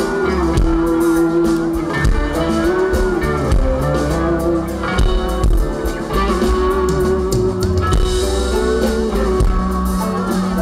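Live band playing a rock song with guitars, bass guitar and drums, a sustained melody line bending in pitch over the beat.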